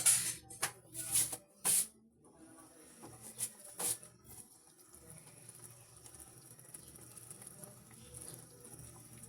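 Several sharp clinks and knocks of kitchen utensils and cookware in the first two seconds and again briefly about four seconds in, over a faint steady hiss.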